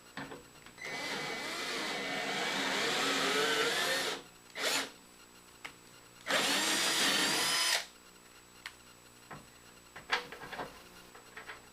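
Electric drill motor running under the trigger in two runs of a few seconds each with a short blip between, its whine shifting in pitch as the speed changes, then a few light clicks.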